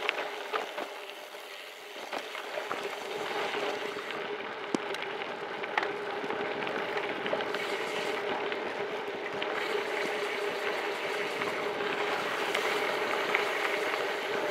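2023 Scott Addict Gravel 10 gravel bike rolling fast downhill on a dirt gravel road: steady tyre crunch and rattle, with scattered sharp clicks of stones and bike parts over a steady buzz.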